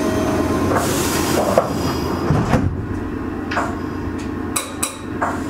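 Meitetsu 6000 series electric train heard from inside a passenger car while running: a steady low rumble from wheels and running gear, with several sharp clacks and knocks at irregular intervals.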